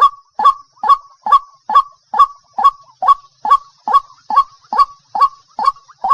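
Waterhen calling a long, even series of short, loud, harsh notes, a little over two a second.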